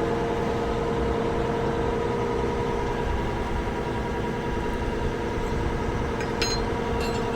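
Farm tractor engine idling steadily while backing up to hitch onto a cultivator, with a couple of short sharp clicks near the end.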